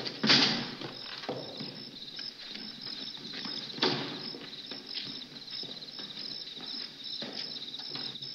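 Crickets chirping in a steady train of quick, repeated pulses, with the scuffing footsteps of a man walking across a yard and a few louder knocks, the strongest near the start and about four seconds in.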